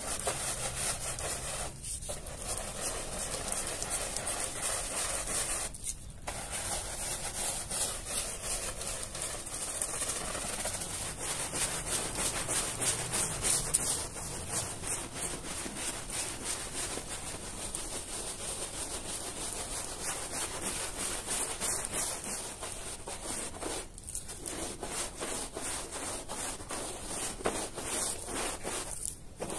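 Stiff-bristled scrub brush scrubbing a soapy, foam-covered carpet in steady back-and-forth strokes, with a few brief pauses.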